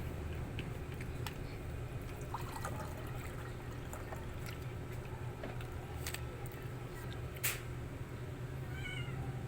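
Steady low hum with scattered small clicks and taps, and one sharper click about three-quarters of the way through. Near the end a cat starts to meow.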